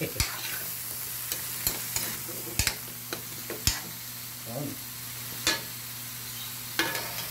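A metal ladle stirring duck pieces, carrots and potatoes in a wide aluminium wok, knocking against the pan about eight times, over a steady sizzle of frying.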